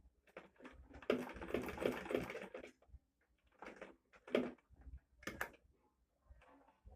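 Butterfly manual sewing machine stitching: a quick run of rapid clattering stitches lasting about a second and a half, then three short separate bursts of a stitch or two each.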